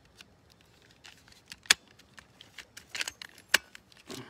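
Scattered sharp clicks and taps, loudest just before two seconds in and about three and a half seconds in: a hand-held light being handled and switched after it cut out unexpectedly with a full battery.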